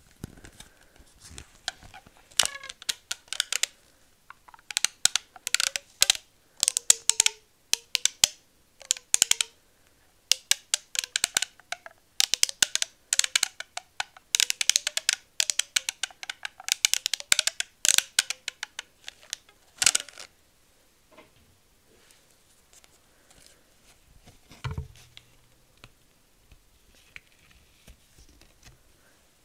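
Long acrylic fingernails tapping quickly on a paper gold-leaf booklet, in fast runs of sharp clicks that stop about twenty seconds in. A single dull thump follows a few seconds later.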